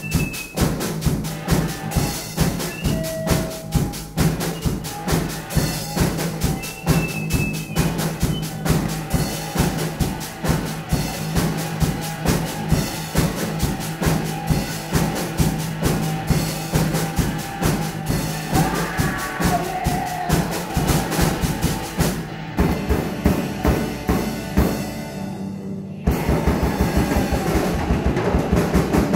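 Background music with a steady drum-kit beat. Near the end the music thins out for a few seconds, then comes back louder and fuller.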